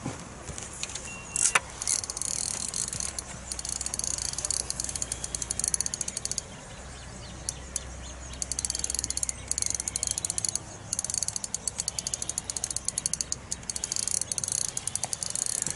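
Fixed-spool fishing reel ticking rapidly in long runs with short pauses while a hooked fish is played on a bent rod.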